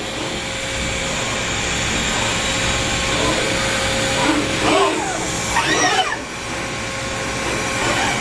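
Exechon XT500 machining centre milling an aluminium part with a small end mill: a steady, loud hiss of cutting with a constant spindle tone. A few rising-and-falling pitch sweeps come about halfway through.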